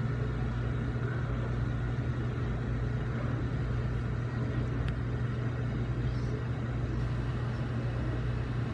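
Steady low mechanical hum, unchanging throughout, over a faint background hiss.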